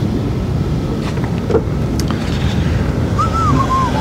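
Wind buffeting the microphone, a steady low rumble. Near the end comes a short wavering whistle that rises and falls twice.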